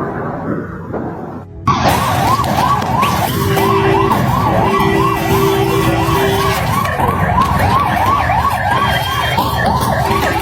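Emergency vehicle siren wailing in a fast yelp, rising and falling about three times a second, with a steady lower horn-like tone sounding in stretches. It starts suddenly after about a second and a half of low rumbling noise.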